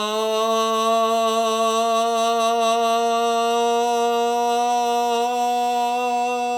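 A man's voice toning one long, steady held note, rich in overtones, as a healing sound in a sound-healing meditation.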